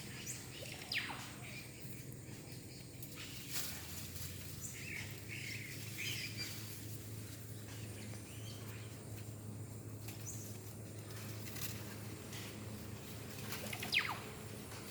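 Two sharp, high calls that fall steeply in pitch, one about a second in and one near the end, from animals in the rainforest. A steady low hum and a few faint clicks and chirps run underneath.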